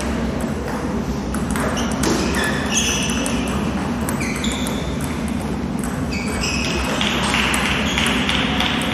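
Table tennis ball struck back and forth in a rally, a run of sharp clicks off the bats and the table, over steady hall background noise.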